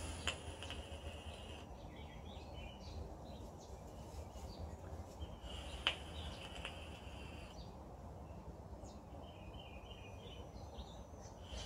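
Faint outdoor background with small birds chirping on and off. A short sharp click comes just after the start and a louder one about six seconds in.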